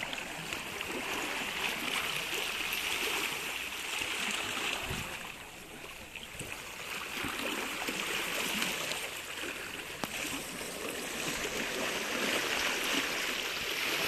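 Small sea waves washing and gurgling against the boulders of a rock breakwater, swelling and easing every few seconds.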